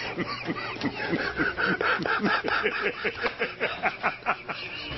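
TV news anchors laughing uncontrollably: a rapid, unbroken string of short ha-ha laughs, about five a second.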